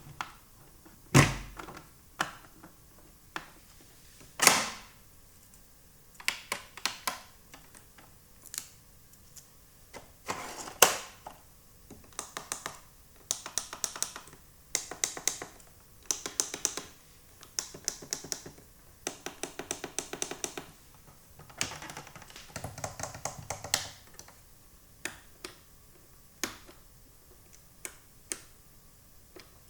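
Small plastic toy pieces being handled, tapped and set down: irregular clicks and knocks, with runs of quick rattling clicks between about 12 and 24 seconds in.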